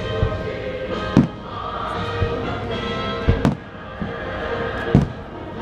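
Aerial fireworks shells bursting across the lagoon: several sharp booms, the loudest about a second in, midway and near the end, with smaller pops between. Under them the fireworks show's music soundtrack plays steadily.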